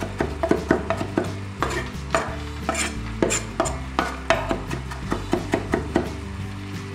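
Chef's knife chopping fresh parsley on a wooden cutting board: uneven knocks of the blade on the board, about two a second, thinning out near the end.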